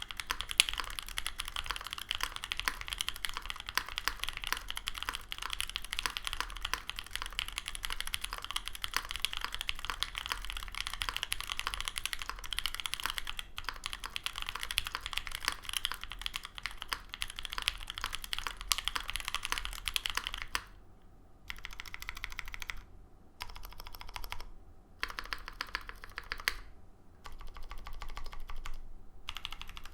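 Continuous fast typing on a Monokei Kei R2 mechanical keyboard with Pewter tactile switches on an aluminum full plate and GMK Olivia++ keycaps: a dense run of key clacks. About two-thirds of the way through it breaks into short bursts of typing with silent gaps between them. The switches lack factory lube on the stem legs and leaf, which the uploader hears as scratchiness and a lot of leaf ping.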